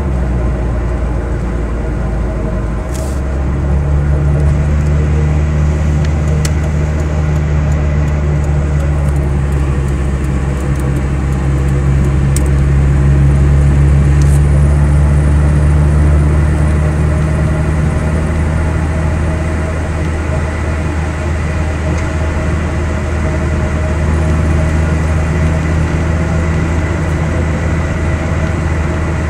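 A 2003 Mitsubishi Lancer ES's 2.0-litre SOHC four-cylinder engine and road noise while driving, a steady low drone that drops in pitch about three seconds in. The engine has a logged cylinder 2 misfire and hesitates under acceleration.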